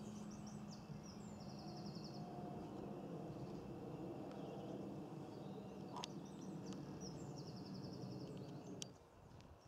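A steady low droning hum, which stops suddenly near the end. Over it, a songbird sings a short high trilling phrase twice, and there are a couple of faint clicks.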